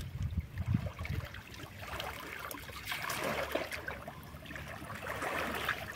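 Shallow muddy water trickling and sloshing as someone wades through a small reservoir, with a few dull low thumps in the first second.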